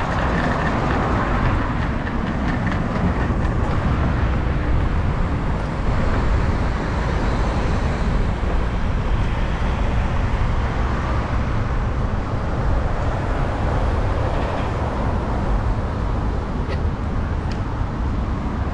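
Continuous low rumble and rushing noise of riding a bicycle along city streets, at a steady level throughout, with a few faint ticks near the end.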